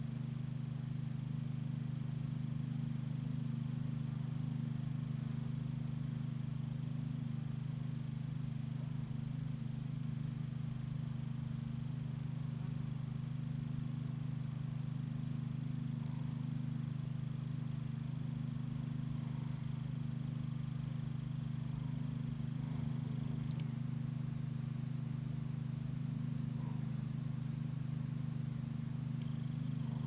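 A steady low hum runs throughout, with faint, short bird chirps scattered over it.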